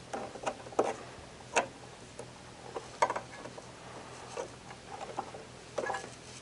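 Small irregular clicks and knocks of a humidity control's metal body and bracket against a dehumidifier's sheet-metal control panel as it is worked into place by hand, the sharpest about a second and a half and three seconds in.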